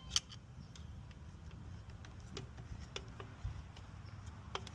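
Flathead screwdriver tightening down the refitted intake: a few faint, scattered clicks, the sharpest just after the start.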